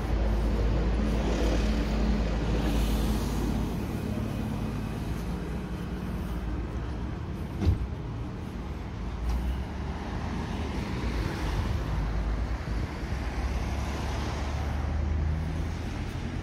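Street traffic: a low engine rumble with vehicles passing, swelling in the first few seconds and again from about ten seconds in. A single sharp knock comes a little before eight seconds in.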